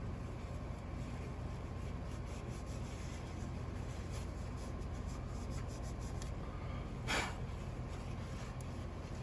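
Faint rubbing and small clicks of hands handling the capacitor's wires and terminals, over a steady low hum, with one short, louder rush of noise about seven seconds in.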